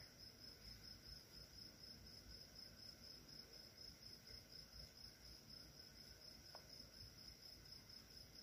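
Near silence with the faint, steady high-pitched trill of crickets chirping at night. A single faint short tick comes about six and a half seconds in.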